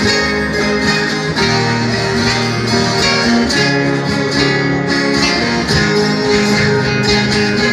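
Instrumental passage of Brazilian viola music: plucked strings, led by the ten-string viola caipira, played without singing.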